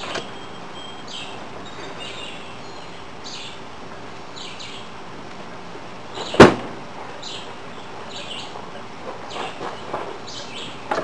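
Birds chirping in short calls about once a second, with one sharp knock about six seconds in.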